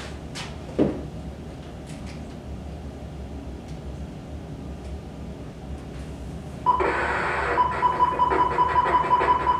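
A radio switched on about seven seconds in, coming in suddenly with a steady high tone and a quick regular pulse. Before it, a few light knocks and clicks of handling.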